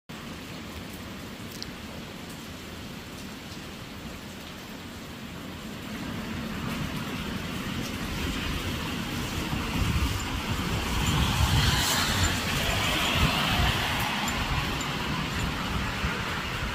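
Tyres of a passing vehicle hissing on a rain-soaked road. The sound swells from about six seconds in to its loudest around eleven to thirteen seconds, then eases, over a steady background hiss of rain and wind.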